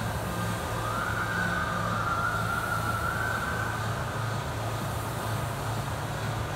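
Air rowing machine's fan flywheel whirring steadily as it is rowed. A high wavering tone rises over it from about a second in to about halfway through.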